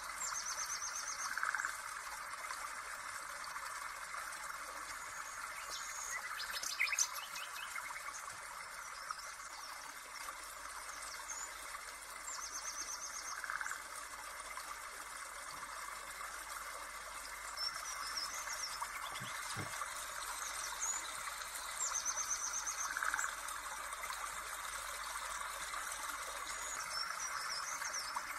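Birdsong ambience with a steady insect-like chirring, the same chirping trills coming back several times. A short run of clicks sounds about seven seconds in.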